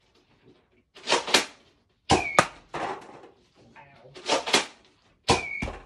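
Nerf Mega XL Big Rig blaster being fired twice, about three seconds apart. Each time there are two quick noisy handling strokes as the blaster is readied, then a sharp shot with a brief whistle from the Mega XL dart, then a knock about a third of a second later as the dart lands.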